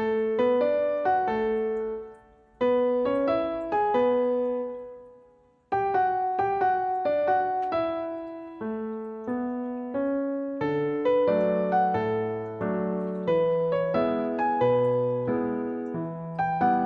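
Background piano music: a slow, gentle melody of single struck notes. It pauses briefly about two seconds in and for about a second near the five-second mark, then plays on continuously, with lower bass notes joining about ten seconds in.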